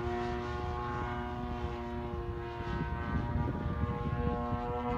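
P-38 Lightning flying overhead, its two engines and propellers giving a steady multi-tone drone. About midway the drone weakens for a couple of seconds under an uneven low rumble, then returns.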